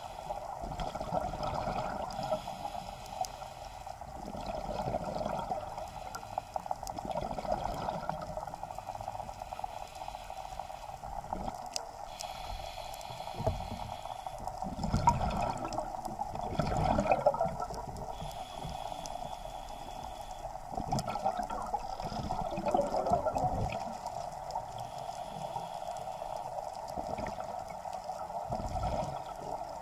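Underwater sound picked up through an action camera's waterproof housing: scuba divers' regulator exhaust bubbles coming in irregular bursts over a steady water hiss, loudest a little past the middle.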